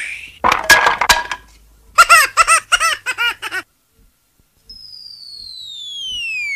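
Cartoon sound effects: a few sharp clattering knocks, then a quick run of short springy pitched notes, then a long falling whistle that starts about five seconds in and glides steadily downward.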